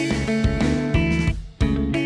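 Background music: a guitar-led track with a steady beat and a brief drop-out about one and a half seconds in.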